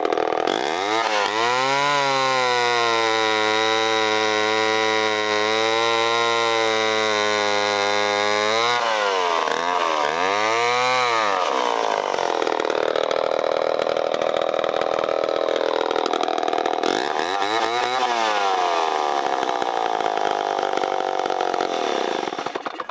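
Homelite C-7 vintage chainsaw running at high revs. Its pitch dips and climbs again partway through, and it turns rougher and noisier as it works into the wood. It stops abruptly near the end.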